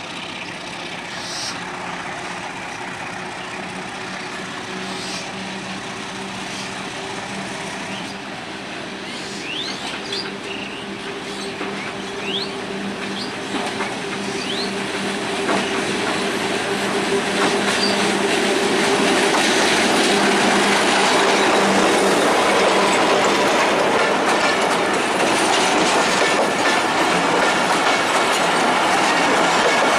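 A diesel locomotive hauling an express passenger train draws near with a steady engine drone that grows louder, then passes close by. For the last third, the coaches roll past with a loud rumble and clatter of wheels on the rails.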